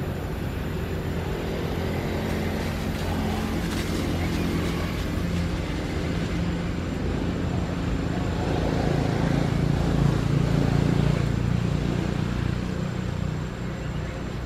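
A steady, low vehicle-engine rumble that grows louder about two-thirds of the way through and eases off near the end.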